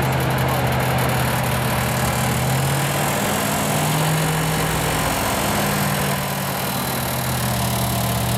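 GAZ-66 truck's engine running steadily under load as the truck crawls through deep snow. The engine note holds close to one pitch, with slight rises and falls.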